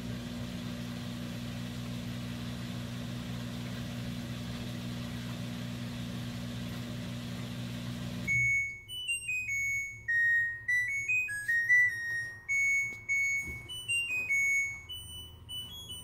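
LG Twin Wash Mini washer running with a steady low hum while its drum turns. The hum stops about eight seconds in, and the washer then plays a short tune of high beeps, its end-of-cycle melody signalling that the wash is finished.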